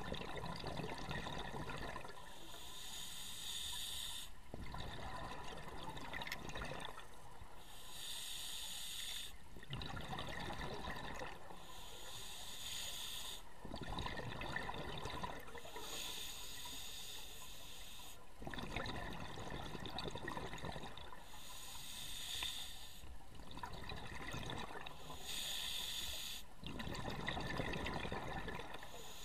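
Scuba diver breathing through a regulator underwater: a hiss on each inhale, then a bubbling rush of exhaled air, in a slow, even rhythm of about one breath every four to five seconds.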